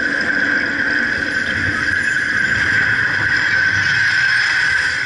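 Test Track ride vehicle running along its track: a steady, even rushing and whirring noise with no change in pace.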